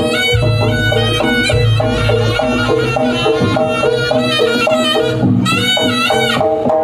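Live jaranan gamelan music: a loud, wavering lead melody with sliding notes over repeating metallophone notes and a steady drum beat.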